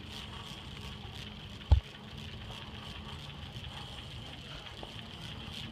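Walking through a big store behind a rolling shopping cart: a steady low rumble of store background noise with faint, evenly spaced ticks from wheels and footsteps. One dull thump comes just under two seconds in.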